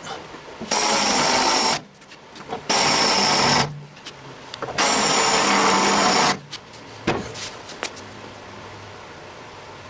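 Pneumatic air chisel cutting sheet metal out of a truck floor, run in three bursts of about a second each with short pauses between.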